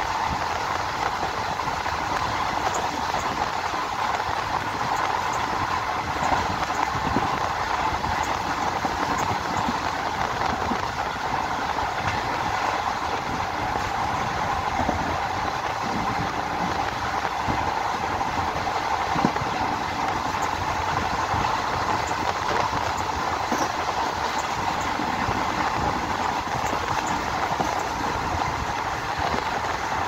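ICF passenger coach running on the track, its wheels on the rails making a steady roar with a few sharp knocks scattered through it.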